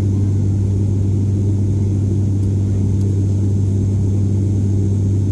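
Cabin drone of an ATR 72-600 turboprop, its engine and six-blade propeller heard through the fuselage as the plane climbs. It is a loud, steady deep hum with a second steady tone above it.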